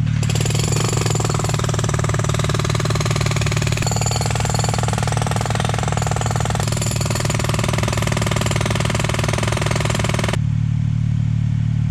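Heavy powered machinery running loudly: a steady low engine drone with a rapid pulsing, hammering layer on top that cuts off sharply about ten seconds in while the drone carries on.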